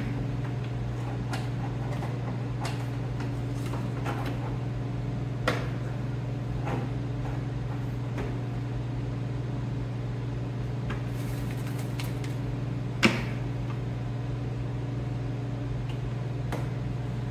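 Scattered clicks and knocks of plastic push pins and fender-flare panels being handled and pressed in, the sharpest about five and thirteen seconds in, over a steady low hum.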